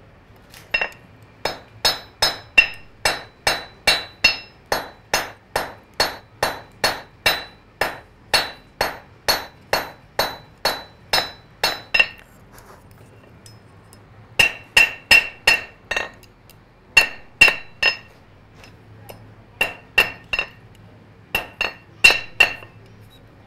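Blacksmith's hand hammer striking red-hot iron on an anvil, each blow ringing clearly: a steady run of about two to three blows a second for some twelve seconds, then after a short pause, quick groups of three or four blows. This is hand-forging a nail, drawing out the point and then heading it in a nail header.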